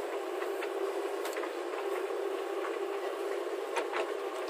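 Heavy diesel engine running steadily, with a few short sharp clicks or knocks about a second in and again near the end.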